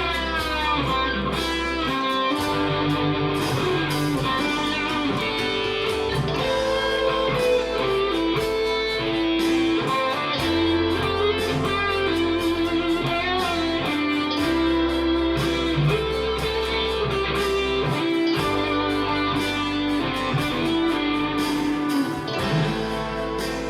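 Guitar improvising lead lines with string bends over a jam backing track of bass and drums. The bass holds a low note and changes it every few seconds.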